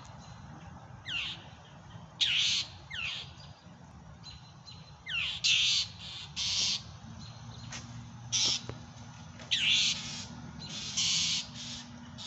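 Young red-tailed hawk giving a series of harsh, high screeching calls, about ten at irregular intervals, several of them opening with a quick falling note.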